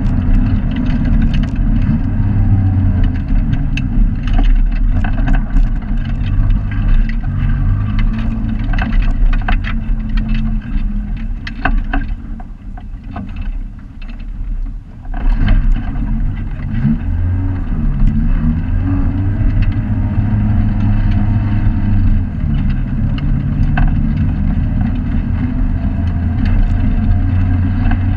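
A hillclimb race car's engine heard from inside the cabin, its pitch rising and falling as it drives, with sharp knocks and rattles over the road noise. About halfway through the engine eases off and goes quieter for a few seconds, then picks up again.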